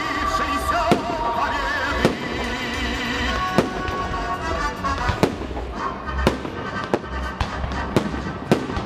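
Fireworks salute shells bursting with sharp bangs about once a second, over music playing alongside.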